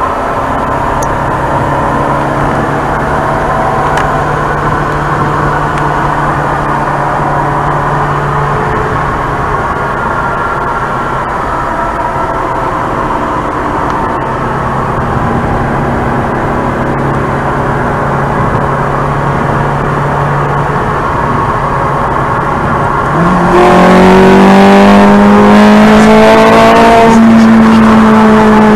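Ferrari 430 Scuderia's 4.3-litre naturally aspirated V8 heard from inside the cabin, running at a steady cruise. Near the end the revs jump up and the engine gets much louder as it accelerates hard, its pitch climbing and then easing slightly.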